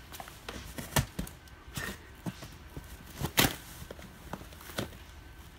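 Scattered soft knocks and rustles as a person climbs into a cardboard display bin of plastic-wrapped pillows and lands among them. The loudest comes about three and a half seconds in.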